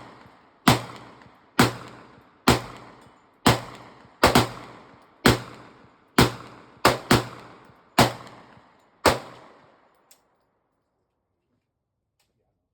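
A semi-automatic handgun fired about a dozen times, roughly one shot a second with a few quick pairs. Each shot is sharp with a short ringing tail. The firing stops about nine seconds in, followed by a faint click.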